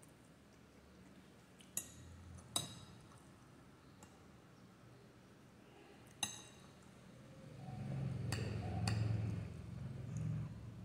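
Metal spoon clinking against an amber glass bowl a few times with sharp, ringing taps, followed near the end by low mouth sounds of someone chewing a mouthful of food.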